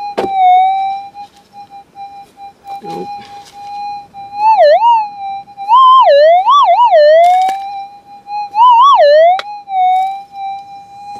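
Minelab GPZ 7000 gold detector sounding through its speaker: a steady threshold hum, broken several times by warbling target signals that swoop up and down in pitch as the coil passes over a buried metal target. The detectorist finds the signal not as loud as expected.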